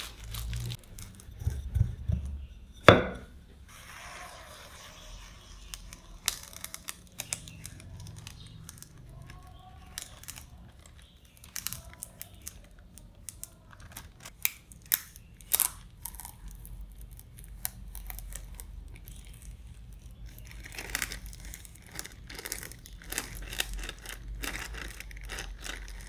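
Plastic film crinkling and tearing as a kitchen knife slits it open and hands peel it back off a pressed sheet of potato dough. Scattered sharp clicks and knocks run through it, the loudest about three seconds in.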